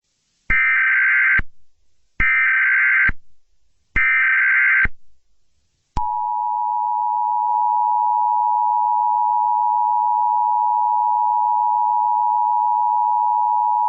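Emergency Alert System SAME header: three short bursts of warbling data tones. About six seconds in, the steady two-tone EAS attention signal begins, announcing an emergency action termination message.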